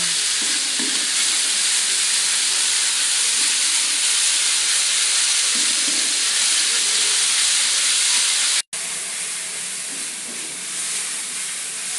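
Spice paste sizzling in hot oil in a wok while being stirred with a spatula: a steady, loud hiss. It cuts off abruptly about nine seconds in and resumes a little quieter.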